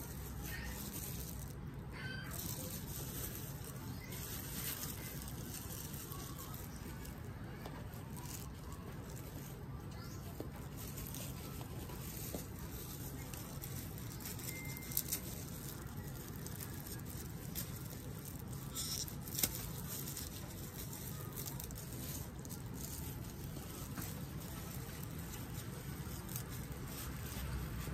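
Steady low background hum with a few light clicks and rustles from hands in plastic gloves handling a clear plastic cup of potting mix.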